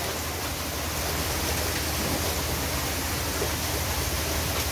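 Fast-moving river water rushing and splashing around pilings and a boat hull: a steady, even rushing noise.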